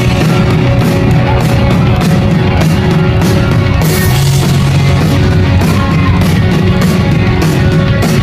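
Pop-punk band playing live at full volume: distorted electric guitars and bass over drums keeping a steady fast beat, with cymbal hits about three times a second, recorded from inside the crowd.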